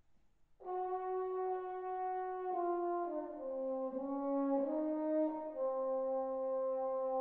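Unaccompanied French horn playing a slow phrase: after a short rest it enters on a long held note about half a second in, then steps down through several notes to a lower note held long near the end.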